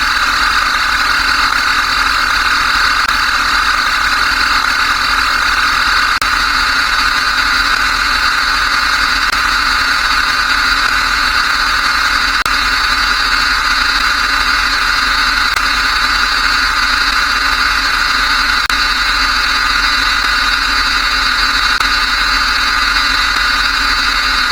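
Many electronic beep sound effects overlapped into one loud, steady buzzing drone, with no separate beeps to be made out.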